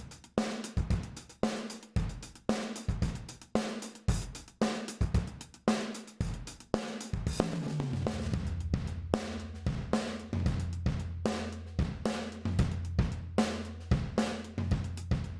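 Sampled drum kit groove from Addictive Drums, with kick, snare, hi-hats and cymbals, played through the TDR Molotok compressor on the drum bus, likely in its middle (beta) mode. The hits come at a steady rhythm, and a steady low tone joins them about halfway through.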